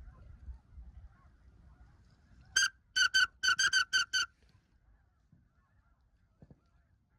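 A goose call blown in a quick run of about seven short, high honks, about two and a half seconds in.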